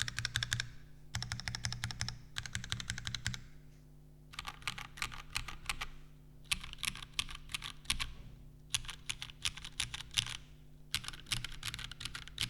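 Typing on a custom mechanical keyboard with Cherry MX Black linear switches, a full nylon plate and GMK keycaps. Six quick runs of keystrokes come with short pauses between them, and the typing stops at the end.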